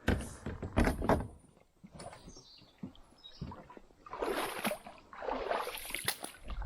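Water splashing and sloshing around a kayak, in two longer bursts in the second half, with a few sharp knocks in about the first second.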